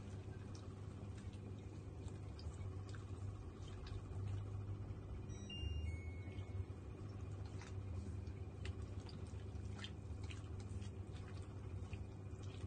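Choy sum boiling in a wok of water, with light scattered clicks of wooden chopsticks stirring the greens against the pan, over a steady low hum.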